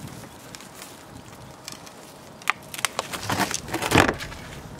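Rustling and a few sharp knocks as a crab is worked loose from a wire-framed crab net on a plastic boat deck, with the loudest thump about four seconds in.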